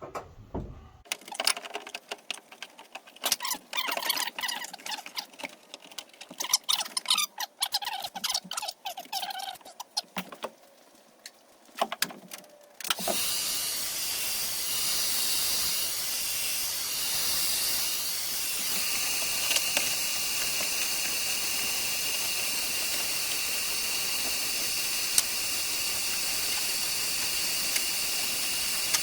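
Rubber window trim being pushed and worked onto the edge of a van's sheet-metal window opening: irregular squeaks, clicks and rubbing with short pauses. About halfway through the sound switches abruptly to a steady hiss with a faint high whine.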